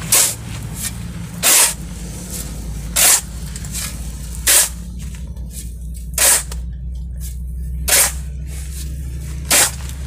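A steel D-handle shovel scraping into a pile of gravelly sand seven times, evenly about every one and a half seconds, turning over the mix for concrete blocks. A steady low hum runs underneath.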